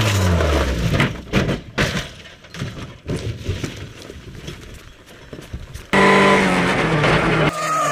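Rally car crash: the engine note drops, then a quick run of bangs and scrapes as the car hits, followed by quieter noise. About six seconds in, a hard cut brings in another car's engine running at a steady pitch.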